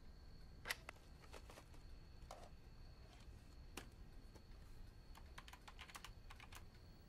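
Typing on a laptop keyboard: scattered soft key clicks, one sharper click just under a second in, and a quick run of keystrokes near the end. A faint steady high tone runs underneath.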